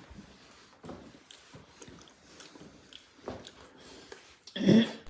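A person eating: quiet chewing with small scattered clicks and taps, and a brief louder sound just before the end.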